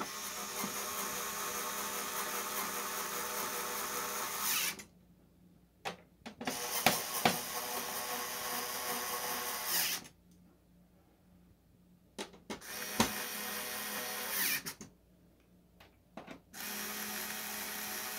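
Cordless electric screwdriver running in four bursts of a few seconds each, with short pauses between, driving machine screws through a metal mounting bracket into the back of a flat-screen TV. A few sharp clicks come in the middle of the run.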